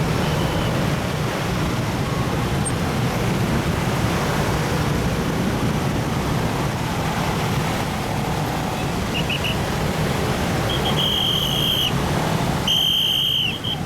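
Road traffic in a jam: a steady low hum of engines and tyres. Near the end come several high, steady one-note blasts, each about a second long, after a few short chirps.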